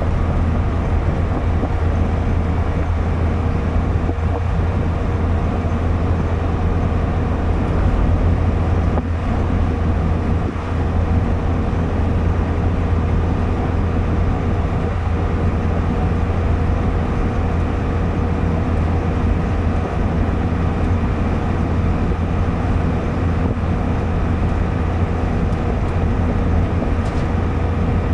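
Steady engine and tyre noise inside the cabin of a car cruising on a highway: a deep, even drone with a thin steady tone above it.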